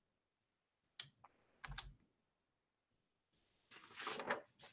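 Faint clicking and tapping at a computer keyboard: a few sharp clicks about a second in, then a denser run of tapping near the end.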